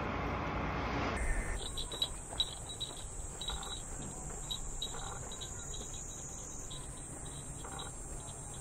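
Insects chirping: a faint, high chirp repeated about three or four times a second over a thin steady high whine, beginning about a second in after a stretch of dull background noise.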